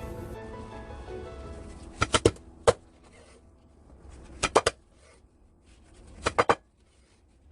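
Cleaver chopping hard on a cutting board in quick groups of two or three strokes, over background music.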